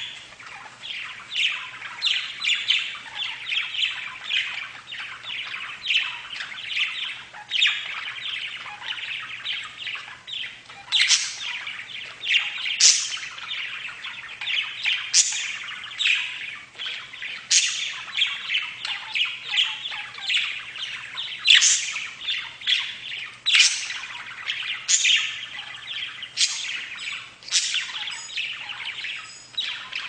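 A flock of budgerigars chattering and warbling without a break, many birds overlapping, with frequent sharp high chirps standing out above the chatter.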